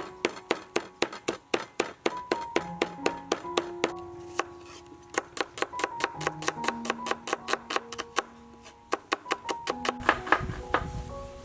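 Cleaver chopping garlic and shallot on a wooden cutting board: quick, even knocks about five a second, with two short pauses. Soft background music plays underneath.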